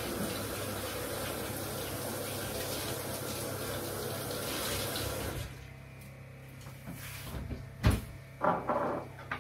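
Water running steadily from a tap into a sink while hands are washed, shut off about five and a half seconds in. A sharp knock and some brief handling sounds follow near the end.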